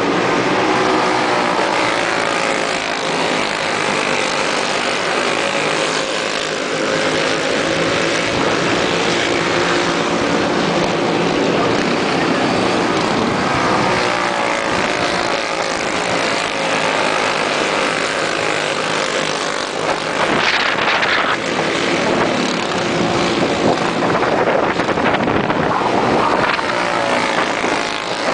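A field of dirt-oval racing karts with Briggs & Stratton Animal single-cylinder four-stroke engines racing around the track, many engines running at once, their pitch rising and falling as they lift and accelerate through the turns.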